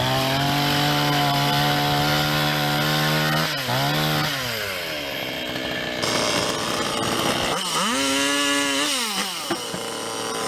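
Two-stroke chainsaw engine running at high revs, then dropping back to idle about three and a half seconds in. Near the end it is blipped once, rising and falling, then settles back to idle.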